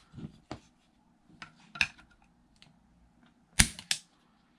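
Beretta M9A4 pistol being dry-fired against a digital trigger pull gauge to measure its trigger weight. A few light metallic clicks come first, then two loud sharp clicks about a third of a second apart near the end.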